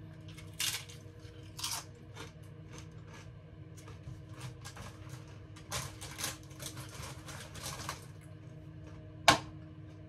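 Crunching as a tortilla chip is bitten and chewed, then a few seconds of a spoon scraping and stirring in a bowl of guacamole, and one sharp knock near the end, over a steady low hum.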